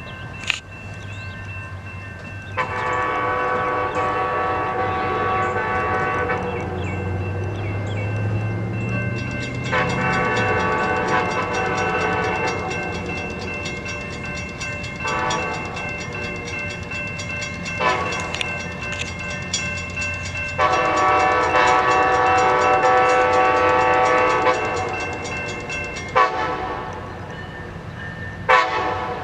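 Amtrak train 97's two lead Siemens ALC-42 Charger diesel locomotives sounding their multi-chime air horns in a horn show. The blasts are long and short, about six in all, over the low drone of the locomotive engines, which swells briefly about a third of the way in.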